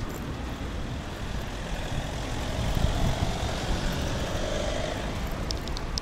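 A motor vehicle running past along the street: engine and road noise that builds toward the middle, with a faint whine, then eases off.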